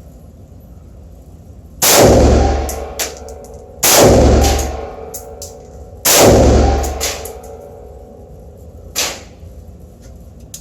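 Three gunshots about two seconds apart from a 7.5 inch AR pistol fitted with a Hardened Arms SMC compensator, each blast ringing out for about a second, with a couple of fainter sharp cracks between them.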